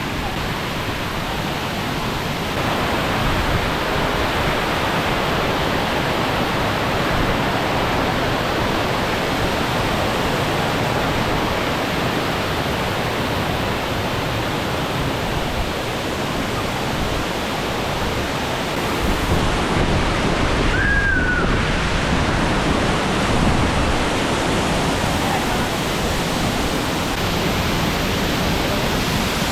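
Waterfall rushing steadily, a dense unbroken roar of falling water.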